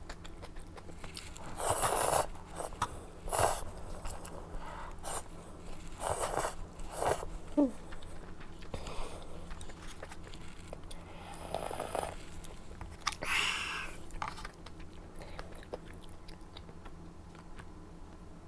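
Close-miked eating sounds: a person biting and chewing food, with irregular louder bites and mouth noises every second or few, the loudest around two, three and a half, seven and thirteen seconds in.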